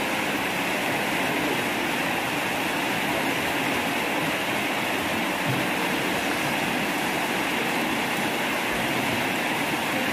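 Waterfall rushing steadily: an even, unbroken noise of falling water.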